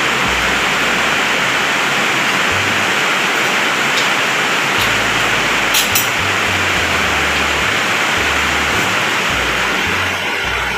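Heavy rain falling, a loud, steady hiss, with a few light clicks about four and six seconds in.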